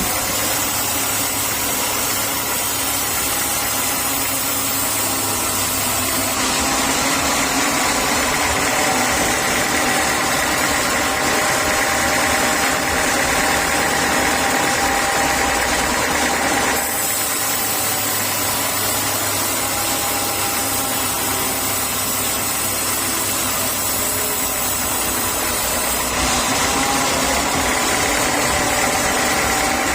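Sawmill saw machinery running: a loud, steady mechanical drone with a constant high whine. The sound changes abruptly about six, seventeen and twenty-six seconds in.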